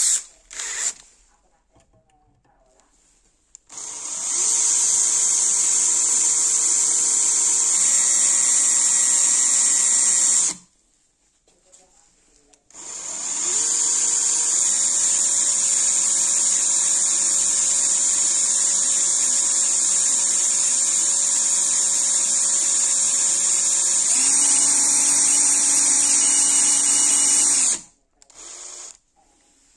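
Cordless drill boring through an aluminium heatsink plate in two runs, about six seconds and then about fifteen seconds, with a high hiss from the bit cutting metal. The motor whine steps up in pitch partway through each run.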